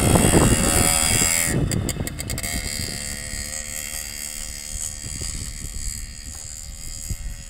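Simson moped's small two-stroke single-cylinder engine running as the bike rides away across grass, fading steadily with distance. Wind buffets the microphone in the first second or so.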